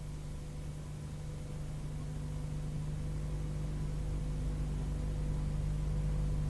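Steady low hum over an even hiss, growing slowly louder.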